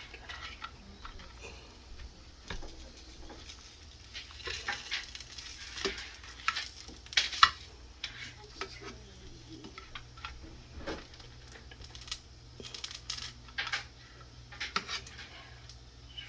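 Dumplings frying in oil in a pan, with a cooking utensil scraping and clinking against the pan as they are turned. The knocks come irregularly, the loudest about seven seconds in.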